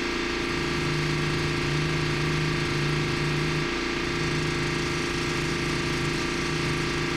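Workshop machinery running steadily: a constant motor drone with a pitched hum and a knocking, engine-like quality.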